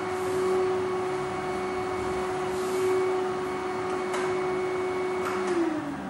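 Vacuum cleaner motor running with a steady hum and rush of suction through the hose held against a cat's fur, with a couple of faint clicks. Near the end the hum's pitch begins to fall as the motor winds down.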